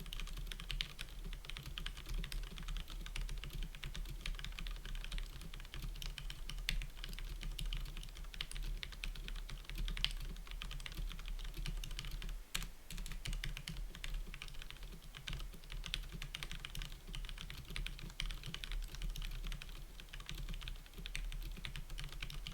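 Brown-switch mechanical keyboard being typed on fast and without pause, a dense stream of key clicks and bottom-outs over a steady low hum.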